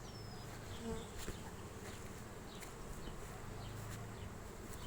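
Honeybees humming steadily around the hives, with single bees now and then buzzing close past: strong colonies working the first day of a sunflower nectar flow, the whole apiary humming.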